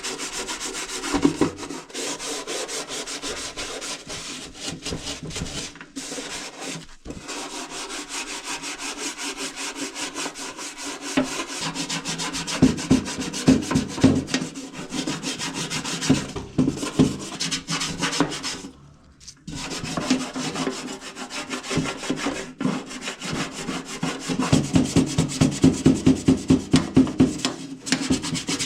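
Rapid back-and-forth scrubbing of a toaster oven's greasy glass door with toothpaste. The strokes stop briefly about two-thirds of the way through, then come back harder and more evenly near the end.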